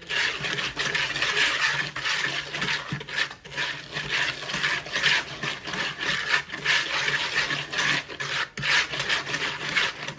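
Continuous rasping and scraping as an eggshell is rubbed against the rim of a bowl to crack it, with a few short breaks.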